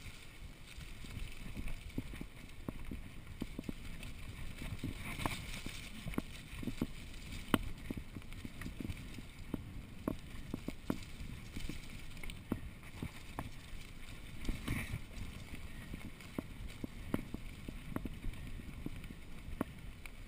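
Mountain bike riding fast down a dirt forest trail: a steady rumble of tyres on the ground with frequent short rattles and knocks from the bike over bumps, and brief rushes of noise around five and fifteen seconds in.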